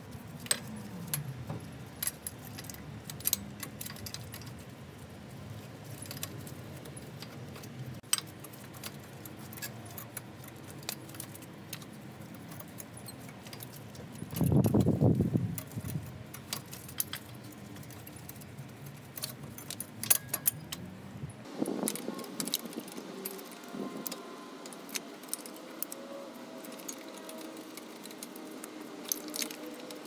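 Metal tools clicking and clinking against a brake caliper as a C-clamp is worked to push back the caliper pistons: many short, scattered clicks. A brief low rumble about halfway through is the loudest sound.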